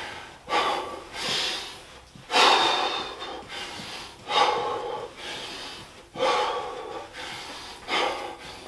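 A man breathing hard from burpees, winded: about six heavy, noisy exhalations a second or two apart as he catches his breath.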